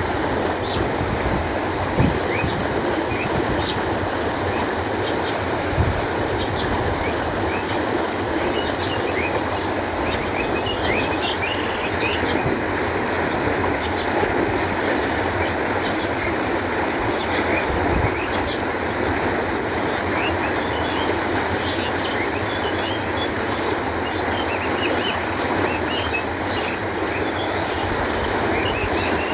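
Canal water flowing steadily with a continuous rush, while small birds chirp in short high calls through much of it. A few brief low knocks stand out over the flow.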